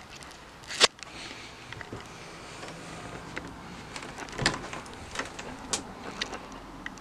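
Scattered sharp clicks and knocks inside a motorhome as someone moves through it, the loudest about a second in and several more in the second half, over a faint steady background.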